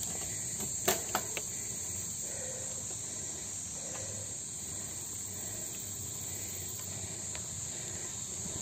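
Steady high-pitched drone of insects, with a couple of short clicks about a second in.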